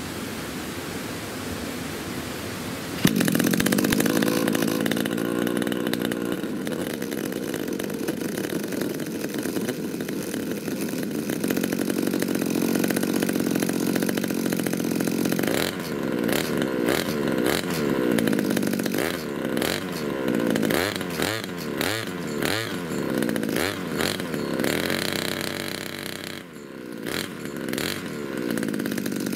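Two-stroke brush cutter engine with an expansion-chamber exhaust and a pod air filter. It starts suddenly about three seconds in and runs steadily at idle. From about halfway it is revved in repeated quick throttle blips, the pitch rising and falling again and again.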